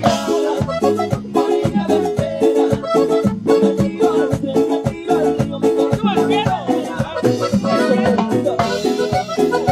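Live band playing an upbeat Latin dance tune at a soundcheck, with a steady percussion beat under bass and melody lines, loud through the stage sound system.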